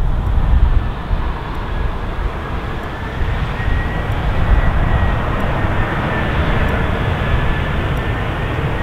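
Airplane engines running: a steady rumble with a thin high whine that wavers slightly in pitch.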